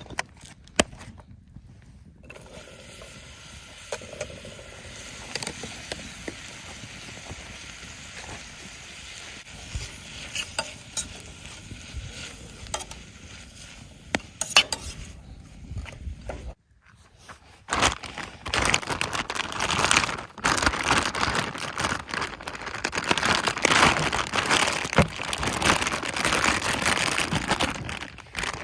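Food sizzling in a pan over a campfire, with a utensil stirring and knocking on the pan. The sizzling drops out briefly past the middle and comes back louder and denser.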